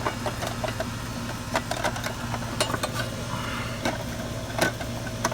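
Steady hum of a running air-conditioner outdoor unit, with irregular clicks and knocks from the disconnect's fuse block and metal parts being handled as it is put back in.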